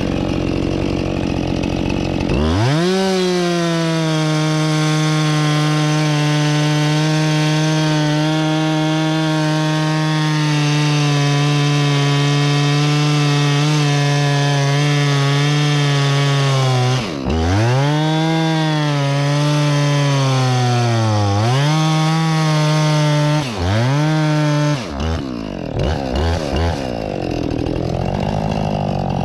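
Husqvarna 576 XP two-stroke chainsaw revving up from idle about two seconds in and cutting steadily into a poplar trunk at full throttle for about fifteen seconds. It then lets off and revs up again several times before dropping back to idle near the end.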